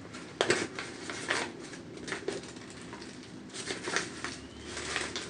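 Thin white packaging wrap rustling and crinkling in the hands as a small parcel is unwrapped, in irregular bursts with a sharp crackle about half a second in.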